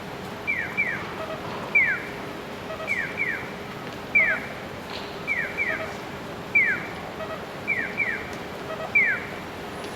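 Japanese acoustic pedestrian signal sounding its electronic bird-like chirps, a double chirp and a single chirp answering each other about every 1.2 s, each chirp falling quickly in pitch. The chirping signals that the pedestrian light is green and it is safe to cross.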